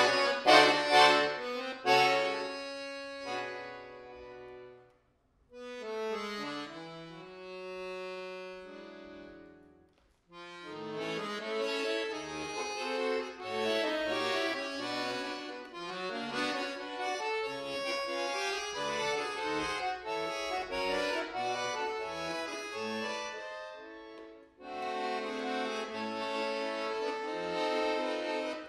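Solo bayan (Russian chromatic button accordion) playing: loud chords that die away, a short pause, a soft slower passage, then a busy run of quick notes, and full sustained chords after another brief break near the end.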